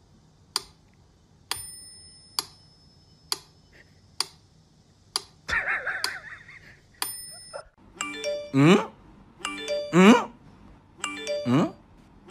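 Sharp clicks about once a second, some with a brief bell-like ring, and a short noisy sound near the middle. Then, from about eight seconds in, music with a rising sliding note that repeats about every second and a half; the music is the loudest part.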